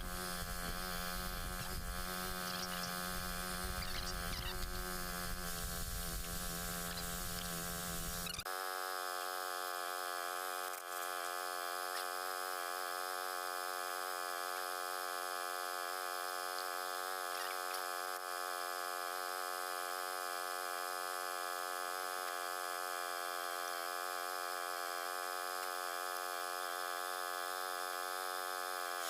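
Steady electrical hum with a buzzy edge. A lower rumble under it drops out about eight seconds in, leaving the hum alone and unchanged.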